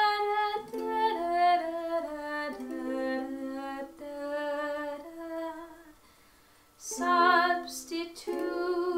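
A woman singing long held notes that step up and down, with a ukulele accompanying. The singing breaks off briefly about six seconds in and comes back with a louder phrase near the end.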